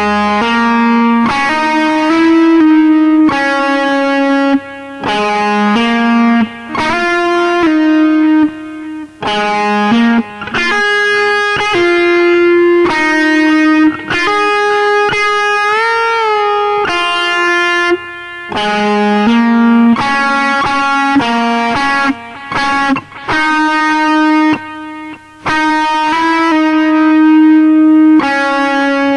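Telecaster-style electric guitar playing a single-note lead melody in D-flat, with notes bent and slid upward, a wavering vibrato on a held note about halfway through, and short breaks between phrases.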